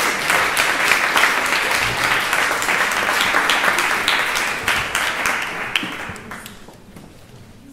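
Audience applauding, the clapping dying away between about five and six and a half seconds in.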